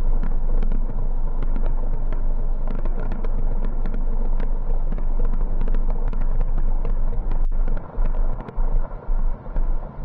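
Fireworks display in a dense barrage: a continuous rumble full of sharp crackles. There is a brief dropout about three quarters of the way through, after which the sound comes in uneven pulses.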